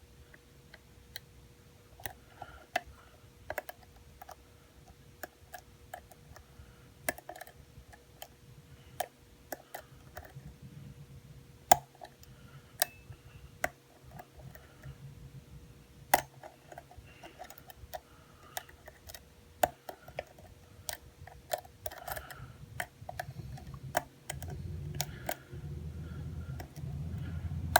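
Lock picking on a U-Change mortise cylinder: irregular small metallic clicks and taps as a pick and tension wrench work the pins, with a few sharper clicks scattered through. A low rumble builds over the last few seconds, just before the cylinder gives.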